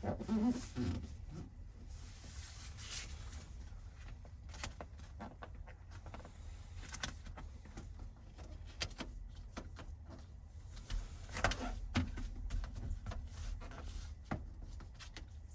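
Irregular handling noises as sound-deadening mat is laid and pressed down on the car's floor: scattered taps, clicks and crinkling rustles over a low rumble, with a small cluster of them near the middle and again a few seconds before the end.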